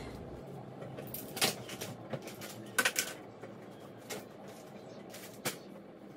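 Several scattered light clicks and knocks of handling as a baby seat is moved and set up, over a faint room hiss.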